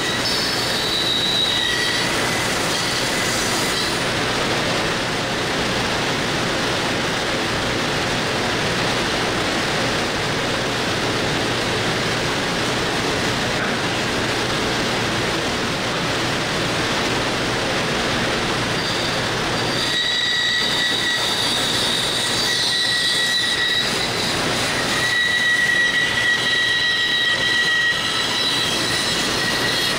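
Bandsaw running steadily, its blade cutting a laminated hardwood board, with a high whine that comes in briefly at the start and again through the last ten seconds.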